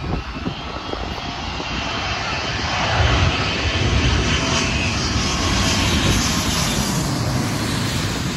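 Jet engines of a twin-engine widebody airliner on final approach, passing low overhead with its landing gear down. A rushing jet roar builds over the first three seconds and then stays loud, with a faint high whine in it.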